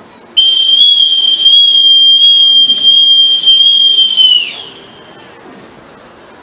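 Boatswain's call (bosun's pipe) sounding one long, steady, high note that starts about half a second in, lasts about four seconds and slides down in pitch as it ends: the piped salute for rendering honours.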